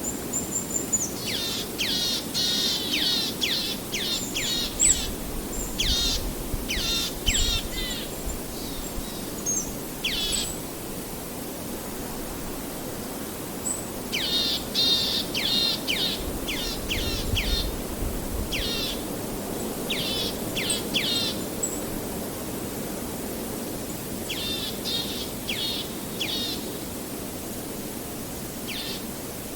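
Forest songbirds chirping in three bouts of quick, rapidly repeated notes, over the steady rush of a river.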